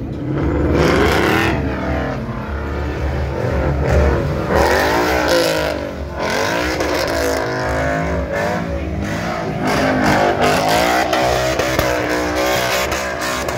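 Ford Mustang's engine revving up and down over and over as the car spins donuts on wet asphalt.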